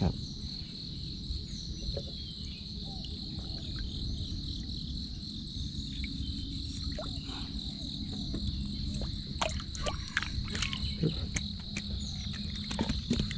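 A steady, high-pitched insect chorus, chirring without a break, over a low rumble of outdoor noise. Scattered short clicks and knocks come through, mostly in the second half.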